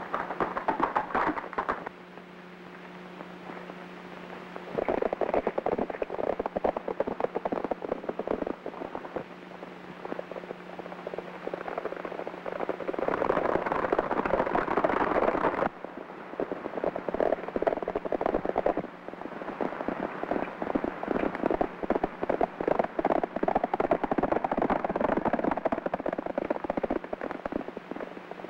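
Horses galloping: a rapid clatter of hoofbeats that comes and goes in several runs, loudest about twelve to sixteen seconds in.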